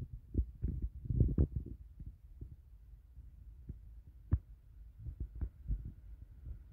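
Approaching WAG-7 electric locomotive hauling a goods train, heard as a low, uneven rumble with irregular thumps. A faint steady whine comes in about five seconds in.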